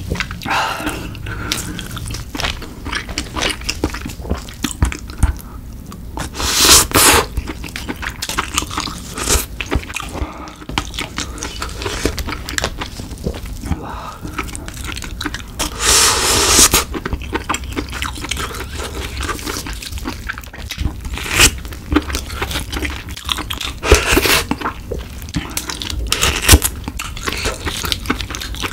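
Close-miked eating of steamed snow crab: wet chewing and crunching, with clicks and scrapes of chopsticks working meat out of the crab leg shells. Two longer, louder bursts stand out, about seven and sixteen seconds in.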